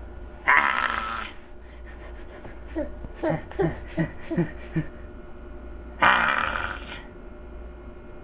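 Silly vocal noises made from inside a box: a loud, harsh squeal with a falling pitch about half a second in, then a run of short falling whoops about three a second, then another harsh squeal about six seconds in.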